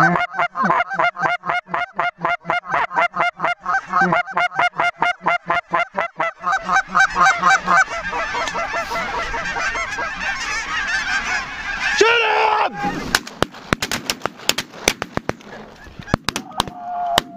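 Snow goose calls: a rapid, even run of honks for the first several seconds, swelling into a dense chorus of many birds at once. Near the end the calling gives way to a string of sharp cracks.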